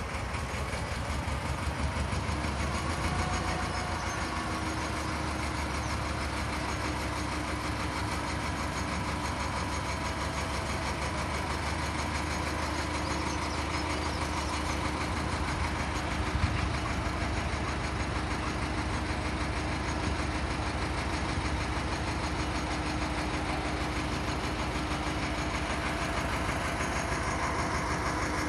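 Narrowboat's diesel engine running steadily at low revs, an even rapid chugging, with one short knock about halfway through.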